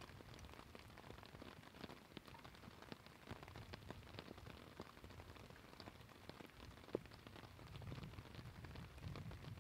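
Faint rain falling, heard as many small, scattered drop ticks over a soft hiss, with one sharper tick about seven seconds in.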